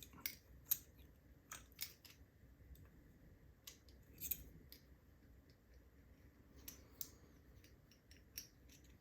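Faint, irregular small metallic clicks and taps as the parts of a Master Lock Pro Series 6840 padlock are handled and taken apart.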